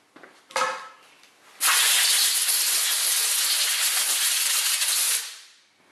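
Compressed-air blow gun giving one steady hiss of about three and a half seconds that starts abruptly and tapers off, blowing mineral spirits off freshly cleaned hydraulic roller lifters.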